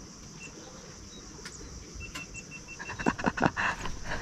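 A hooked fish splashing at the pond surface, starting about three seconds in and growing louder, over a faint steady drone of insects.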